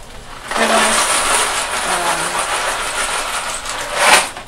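Dry penne pasta poured out of its cardboard box, a steady rattling rush that starts about half a second in, swells near the end and stops abruptly.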